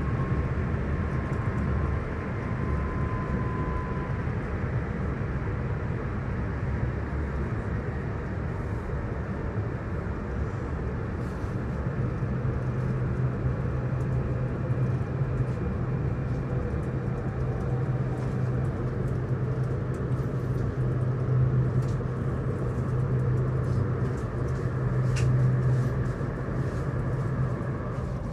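Cabin noise inside a Hitachi AT300 electric multiple-unit passenger train on the move: a steady rumble with a low hum that grows stronger about halfway through, faint thin whine tones, and scattered light clicks and ticks.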